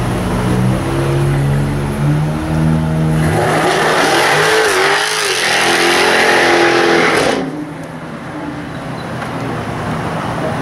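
Jaguar F-Type R's supercharged V8 revving in steps, then held at high revs under a loud hiss of spinning tyres for about four seconds in a burnout. The hiss cuts off suddenly about seven seconds in, and the engine settles to a lower, steady note.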